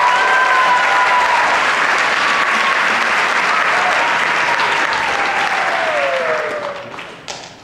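Audience applauding and cheering, with a few long high whoops; the applause dies away near the end.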